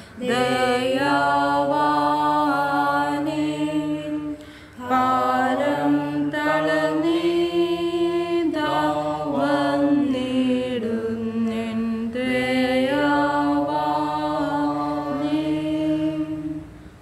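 A man chanting a liturgical prayer, holding long notes that step up and down in pitch, with a brief pause about four and a half seconds in.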